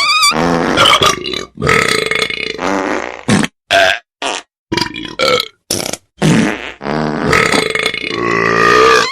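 Novelty phone ringtone made of a run of loud burps, some drawn out and wavering in pitch, with short silent gaps between them in the middle.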